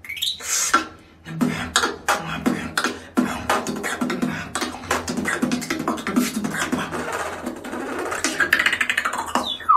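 Solo human beatboxing: a rising swoop at the start, then a fast run of sharp mouth-made drum strokes over a low held tone, ending with a falling whistle-like glide.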